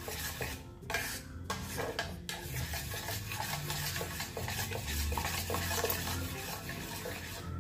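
Metal spoon stirring a thick milk and arrowroot mixture in a steel saucepan, with repeated scrapes against the pan, as the mixture is cooled off the heat.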